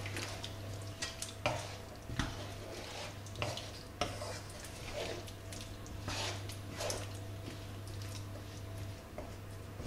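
A spoon stirring a chunky chicken and butternut squash curry in a large non-stick pan, with irregular scrapes and knocks against the pan. A steady low hum runs underneath.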